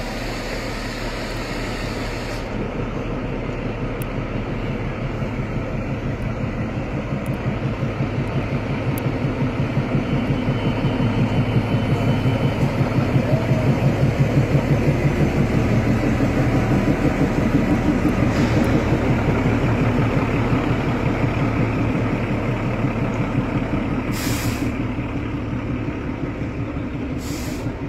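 Narrow-gauge diesel locomotive of the Kalka–Shimla toy train running slowly past, its engine beating with a steady low throb. The sound grows loudest as the locomotive goes by about halfway through, then eases as the coaches roll past.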